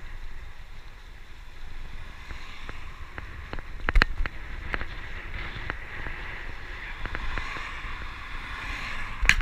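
Wind buffeting the microphone of a bicycle-mounted camera while riding on tarmac, a steady deep rumble under a road hiss that grows toward the end. Scattered clicks and knocks from the bike and mount over bumps, one sharper knock about four seconds in, and a quick rattle of clicks starting right at the end.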